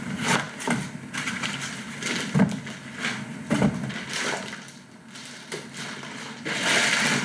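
Clear plastic bag crinkling and cardboard box rustling as a boxed network switch is lifted out and unwrapped, with a series of short knocks and bumps. A denser crinkle of the bag comes near the end.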